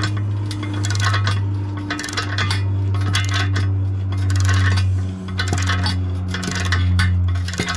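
Ratchet wrench clicking in short runs about once a second as it is worked back and forth, turning the nut of a threaded bearing press that draws a new wheel bearing into a rear hub knuckle. A steady low hum runs underneath.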